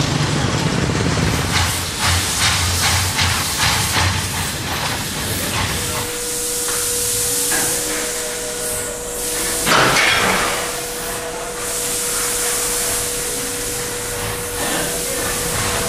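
Small motorcycle engines running, with a low rumble and clicks. About six seconds in this gives way to a steady hum with stretches of hiss and a louder rush of noise about ten seconds in.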